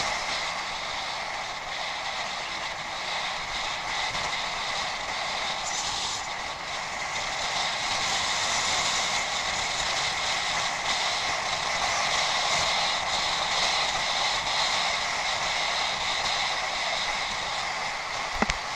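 Bicycle being ridden off-road: steady rolling and mechanical noise from the tyres and drivetrain, with a single short knock near the end.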